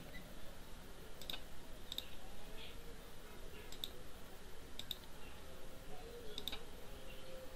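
Computer mouse clicks, five or so spread out with a second or more between them, some in quick pairs, over faint steady room noise.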